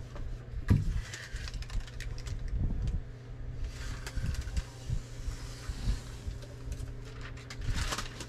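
Handling of a peel-and-stick vinyl floor plank: rustling and light knocks, the loudest about a second in, then a crackling rustle near the end as its backing film is peeled off. A steady low hum runs underneath.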